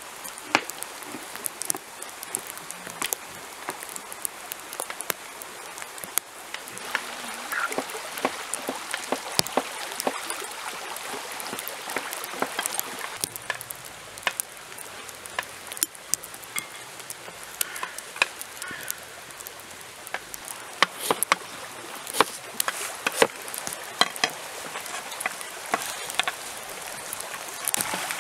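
Knife chopping vegetables on a wooden cutting board: irregular sharp knocks of the blade on the board, coming thicker toward the end, over a steady background hiss.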